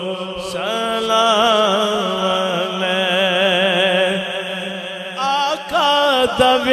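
A man singing a naat, drawing out a long melismatic note with wide vibrato over a steady low drone, then sliding into a new phrase about five seconds in.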